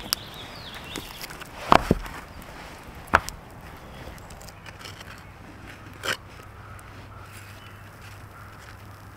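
A few separate sharp knocks and clicks, the loudest about two and three seconds in and a smaller one about six seconds in, over a quiet outdoor background with a faint low steady hum.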